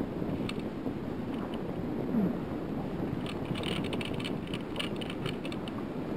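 Wind buffeting the microphone over water slapping against a small boat, with a quick run of light clicks about three to five seconds in.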